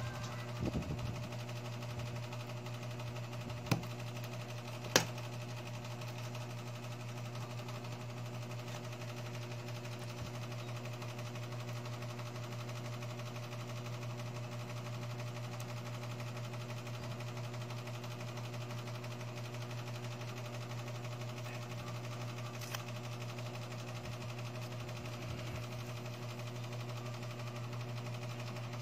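A steady low mechanical hum, with two sharp clicks about four and five seconds in from metal tweezers on small iPhone 6s screen parts.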